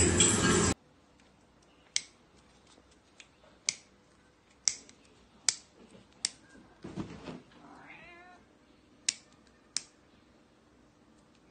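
A loud steady noise cuts off suddenly less than a second in. Then come about eight sharp, separate clicks spaced irregularly, and a cat meows once about seven seconds in.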